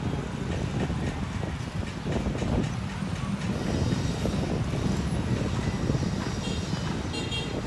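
Distant jet airliner rumbling steadily on its final approach to land, heard over city background noise, with faint high-pitched chirps in the second half.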